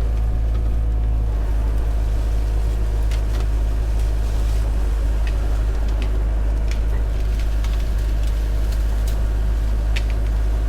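Hyundai HX85A excavator's diesel engine running steadily under load, a heavy low drone, as the machine pushes a fallen tree. A few faint sharp clicks and cracks come through it.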